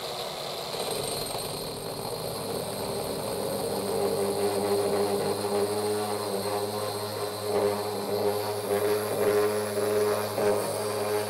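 Angle grinder spinning a diamond core bit, boring a faucet hole through a marble countertop, with a vacuum drawing off the dust at the bit. A steady motor whine that grows louder about four seconds in as the bit works into the stone.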